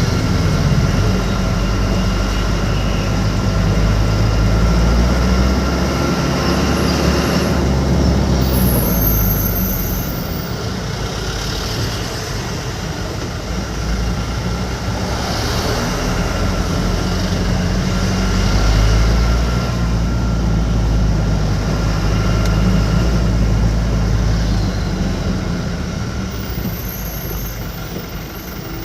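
Truck engine running while driving, its low engine tone shifting as the speed changes, over steady road noise.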